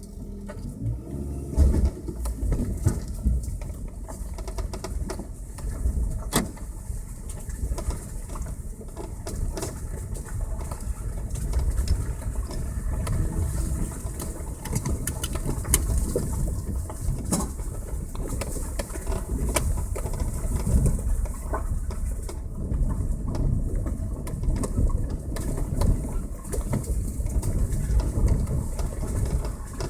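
Passenger car driving along a road: a continuous low rumble with scattered irregular thumps and a few sharp knocks.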